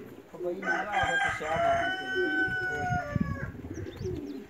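A rooster crows once, starting about half a second in: a call of about three seconds that ends on a long held note, falling slightly in pitch.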